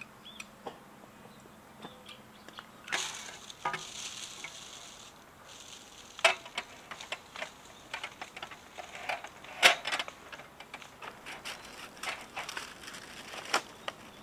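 Camping gear being handled and set up: scattered clicks, taps and knocks of hard parts, the sharpest about nine and a half seconds in, with stretches of rustling between about three and seven seconds in.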